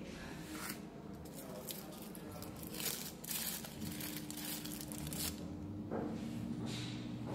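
Rustling and scraping of a small lens box being handled as its hinged lid is opened and the 90D double aspheric lens is taken out, in a string of short scuffs.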